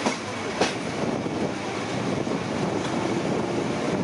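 Passenger train moving out of a station, heard from an open carriage window: a steady rumble of wheels on the rails, with two sharp clicks in the first second.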